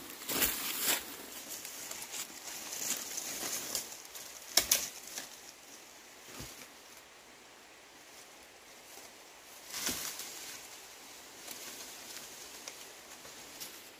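Rustling and crackling of bamboo foliage and dry leaf litter as someone pushes through undergrowth, in uneven bursts, the sharpest brush about four and a half seconds in and another near ten seconds.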